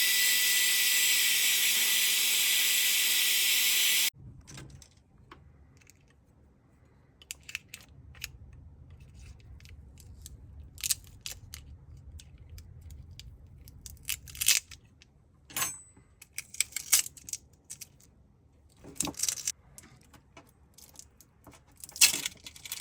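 A loud steady whirring hiss with a thin whine in it cuts off suddenly about four seconds in. After it come a faint low hum and scattered light clicks and taps of small repair tools working inside a smartphone as its battery is freed.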